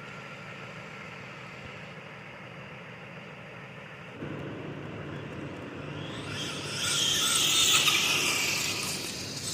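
Traxxas Sledge RC monster truck driving on asphalt. Its motor and tyres come up about four seconds in, then swell to a loud, high-pitched rush between about six and nine seconds in before easing off.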